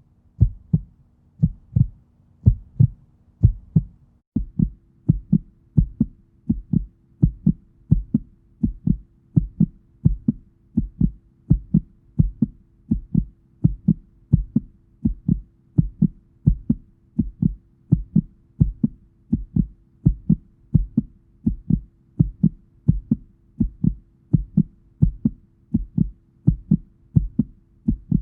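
Steady, evenly spaced low thumps, about two a second, over a faint low hum that steps up slightly in pitch about four seconds in.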